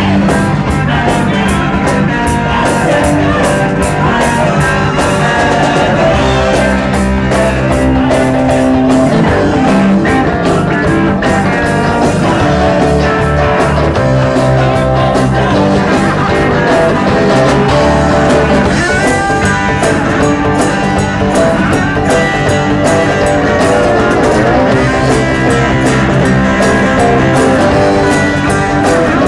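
A live rock band playing loud, with electric guitars and a drum kit.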